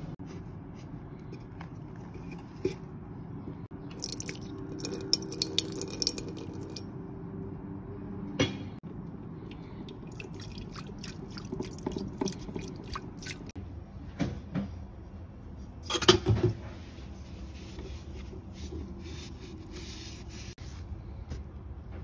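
Water with baking soda sloshing inside a stainless-steel electric kettle as it is shaken by hand, with scattered clinks and knocks of the kettle; the loudest knocks come about two-thirds of the way through.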